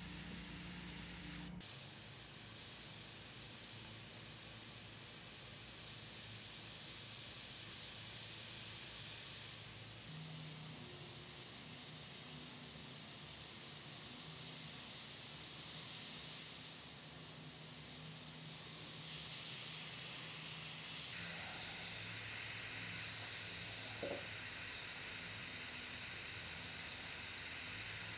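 Airbrush (Richpen 213 with a 0.3 mm nozzle) hissing steadily as air and paint spray from the nozzle. There is a short click just after the start, and the hiss shifts abruptly in tone twice.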